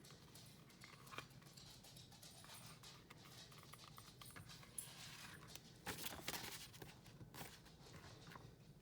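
Near silence with faint handling noises: a few soft rustles and light taps as a leather notebook cover is handled, about a second in and again between five and a half and seven and a half seconds in.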